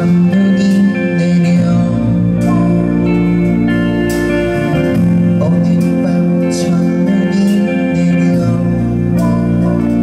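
Live rock band playing a song: strummed acoustic guitar, electric guitar, bass and drums, with cymbal strikes every second or two.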